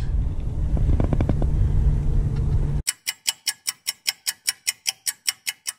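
A low steady rumble, then about three seconds in it cuts to a clock-ticking sound effect: sharp, evenly spaced ticks, about five a second, over silence.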